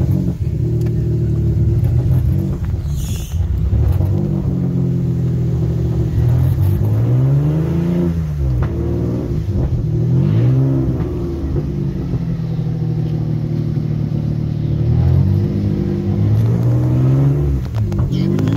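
Off-road 4x4's engine running hard under load, its revs rising and falling back about three times as the vehicle is driven forward and back through deep water.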